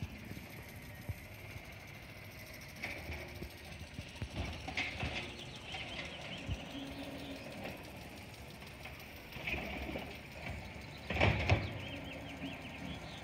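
Garbage truck's diesel engine running with a steady low rumble, broken by short bursts of mechanical and hydraulic noise as it works the curbside bins. The loudest burst comes about eleven seconds in.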